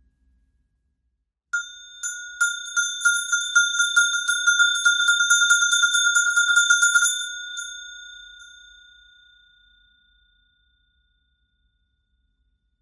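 A bell shaken by hand, its clapper striking about four times a second for some five seconds, then left to ring out and fade away. The ringing starts suddenly about a second and a half in.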